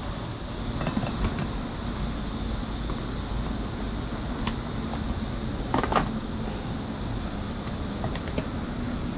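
Portable camping air conditioner running with a steady hum and fan noise. A few light clicks and knocks sound over it, the loudest a short clatter about six seconds in.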